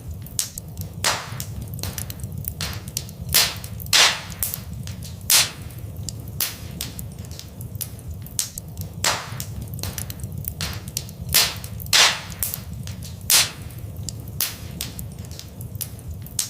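Wood fire in a fireplace crackling: a constant patter of small sharp pops with several louder snaps scattered through, over a steady low rumble.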